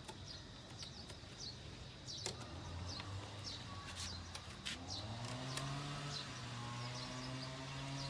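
Small birds chirping repeatedly, short high falling notes, while a low motor hum sets in a couple of seconds in, rises slightly in pitch around the middle and then runs steadily.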